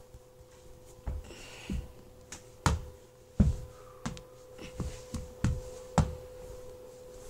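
Irregular light knocks and taps from a small toy doll being bumped along and handled, a few of them sharper and louder, with a faint steady hum underneath.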